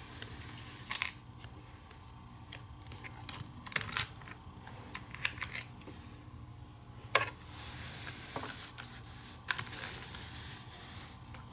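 Plastic toy playset parts and packaging being handled: scattered clicks and taps, with a stretch of rustling in the second half, over a faint steady low hum.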